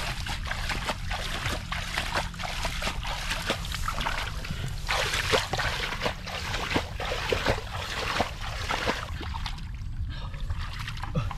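Water being bailed out of a shallow, muddy field ditch: a quick run of irregular splashes and sloshing that thins out near the end, over a steady low rumble.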